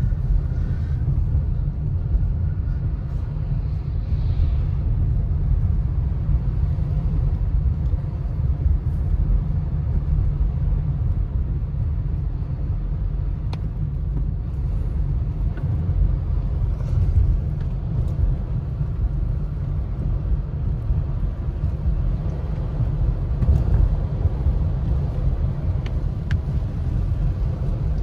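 Steady low rumble of a car driving on a wet, slushy road, heard from inside the cabin: tyre and road noise, with a few faint ticks.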